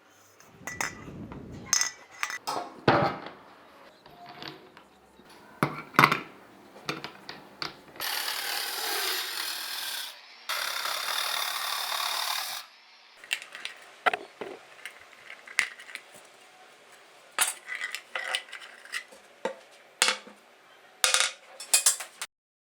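Workshop sounds of hand tools and metal parts being handled: scattered knocks, clicks and clatters. There are two steady hisses of about two seconds each, a little under halfway through, with a short gap between them.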